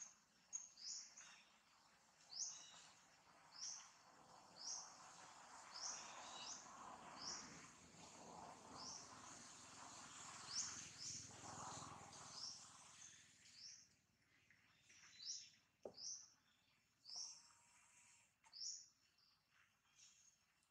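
A bird repeating short, high chirps that drop in pitch, about one a second, over a faint steady background hiss that swells in the middle and fades.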